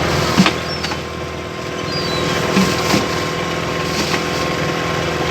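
Boat engine running steadily, with a few short high gull calls and a couple of brief knocks over it.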